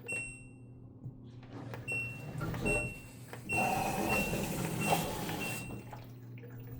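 LG washing machine's drum motor turning the empty drum slowly in test mode, with a steady low hum. From about two seconds in, a string of short high beeps sounds over a swishing noise that fades out just before six seconds.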